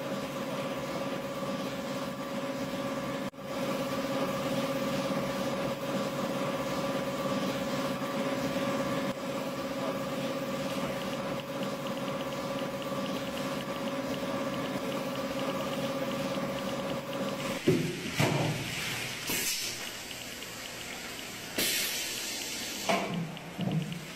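Factory machinery running with a steady hum, with a single click about 3 s in. About three-quarters of the way through the hum stops and gives way to several short hissing bursts and brief knocks.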